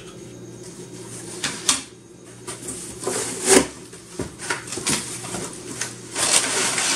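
Crumpled brown kraft packing paper rustling and crinkling as hands dig into a cardboard box, with a few sharp clicks and taps about a second and a half in. The crinkling grows denser and louder near the end.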